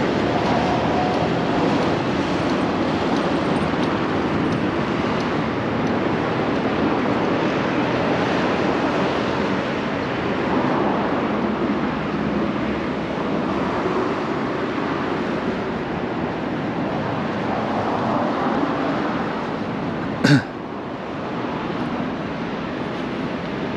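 Steady rushing noise of city road traffic passing. A short sharp sound about twenty seconds in, after which it is a little quieter.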